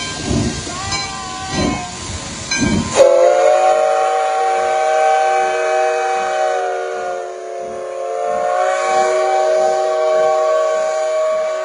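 Steam locomotive No. 58's whistle sounds one long blast starting about three seconds in, a steady chord of several tones held on to the end. Before it, the locomotive's low rhythmic exhaust chuffs as it pulls away.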